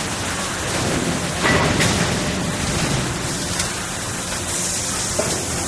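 Steady hissing machine noise from a servo hydraulic press and its hydraulic power unit running, with a louder surge of noise about a second and a half in and a short knock near the end.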